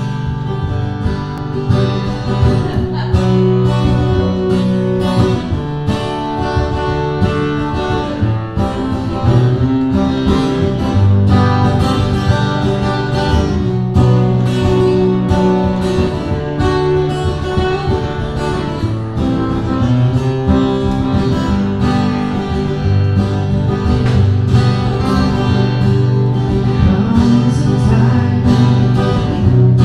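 Two acoustic guitars strummed together in a live country-folk performance, with a harmonica played from a neck rack.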